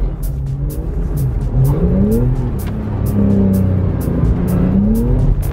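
A Porsche engine rising and falling in revs several times as the car is driven through a sliding exercise, over background music with a steady beat of about two ticks a second.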